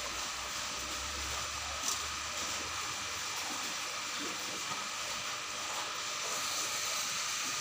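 Steady hiss and trickle of aquarium aeration, air bubbles rising through the tank water, with one short click about two seconds in.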